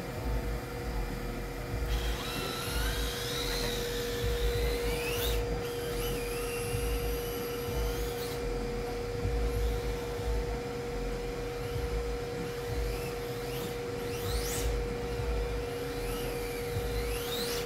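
Electric motors of RC drift cars whining, the pitch sweeping up and dropping away several times as the cars accelerate and lift through the corners, over a steady low hum.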